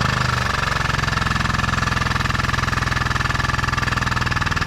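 Power unit of a tube bender running steadily with a rapid, even pulsing and a high hum on top, driving the bender through a roughly 10-degree bend in a steel roof bow. It switches on abruptly just before the sound begins.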